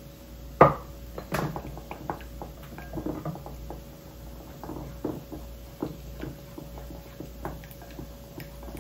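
Kitchen handling sounds: light clicks and knocks of utensils and containers, with one sharp clack just over half a second in, over a faint steady hum.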